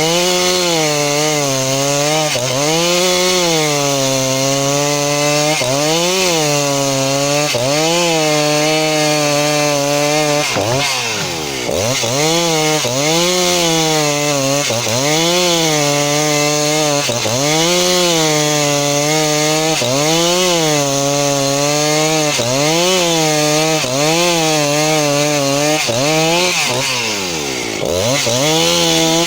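Two-stroke chainsaw, a model 272, ripping lengthwise through a log to cut boards, running at high revs. The engine pitch sags under the load and picks up again about every one to two seconds, with two deeper drops, about eleven seconds in and near the end.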